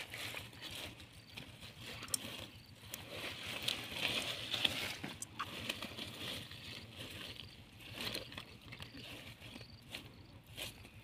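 Hands rummaging through wet mud and water plants on a plastic sheet, with irregular rustling and small clicks.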